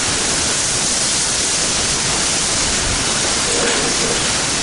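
Heavy rain pouring down in a severe thunderstorm, a loud, steady hiss.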